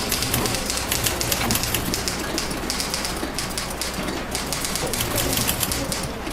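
Several typewriters clattering together, keys striking in a dense, irregular stream of clicks.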